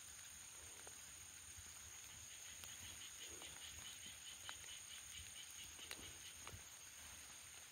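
Near silence: faint outdoor ambience with a steady high-pitched hum. About two and a half seconds in, a short run of rapid, even chirps, about seven a second, lasts some three seconds. A few faint clicks are scattered through it.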